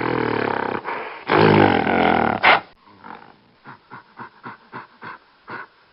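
Two long, low animal calls in a row, each about a second, followed by a run of short rhythmic breaths or grunts about two a second.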